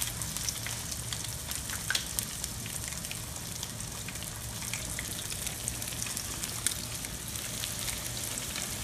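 Battered ground mullet deep-frying in a pan of hot oil: a steady sizzle with scattered pops and crackles.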